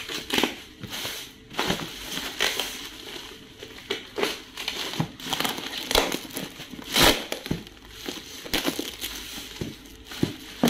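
Plastic parcel wrapping crinkling and rustling as it is pulled open by hand and a cardboard box is taken out, in irregular bursts with the loudest crackle a little past halfway.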